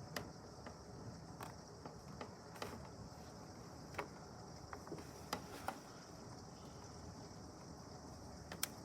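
Heavy rain heard from indoors, muffled by the building: a steady hiss of the downpour with scattered, irregular sharp ticks of drops striking nearby surfaces.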